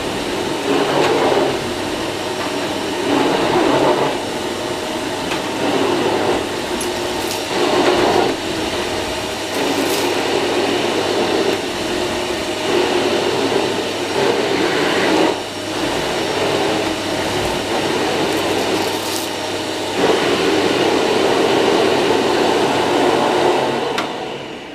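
Electrolux UltraFlex Green canister vacuum cleaner running with the combination floor nozzle on carpet, likely at its lowest suction setting. The sound swells and eases every second or two as the nozzle is pushed back and forth, with a few light clicks. Near the end it is switched off and dies away.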